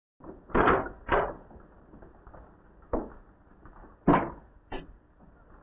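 A door being opened into a room: several sharp knocks and clunks from the latch and door, over a steady low background hiss.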